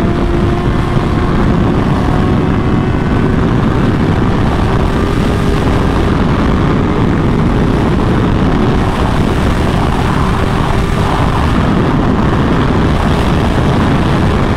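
Motorcycle engine running under way at a steady cruise, a droning note that rises slowly in pitch, under heavy wind rush on the microphone.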